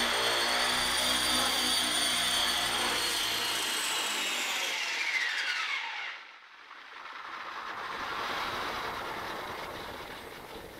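Align T-Rex 450 Pro electric RC helicopter hovering with a steady whine from its brushless motor and rotor. After about four seconds the whine falls in pitch as the motor spools down and cuts off about six seconds in. A softer rushing noise with no tones then swells and fades.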